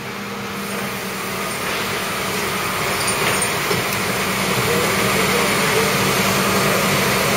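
Rollback tow truck's engine running with a steady hum that gradually grows louder.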